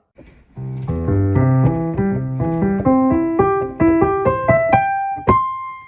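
Short intro tune on a keyboard: a run of notes climbing steadily in pitch, ending on one high note struck about five seconds in that rings on.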